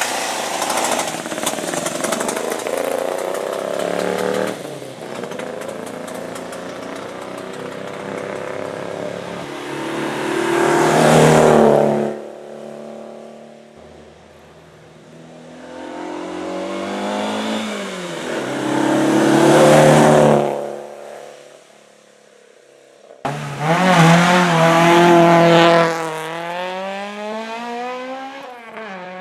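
Hill-climb racing cars accelerating hard up the course one after another, their engines rising in pitch through the gears with quick drops at each upshift. Each pass peaks loud and then cuts off abruptly before the next car is heard.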